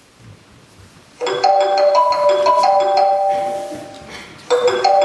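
Mobile phone ringtone, a marimba-like tune of quick pitched notes, starting about a second in and starting over near the end.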